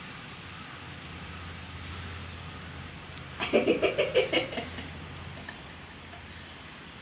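A person bursts into a short laugh about halfway through: around six quick, pitched 'ha' pulses over roughly a second.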